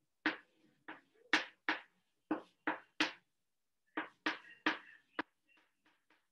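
Chalk writing on a chalkboard: a quick, uneven series of sharp taps, about a dozen, with a brief pause a little past halfway and fainter taps near the end.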